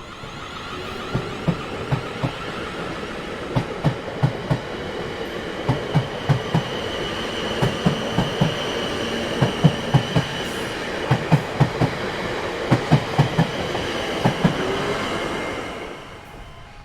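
A train running past on the rails, its wheels clacking over the rail joints in repeated groups of two to four knocks, with a steady high whine over the rumble. The sound swells at the start and dies away near the end.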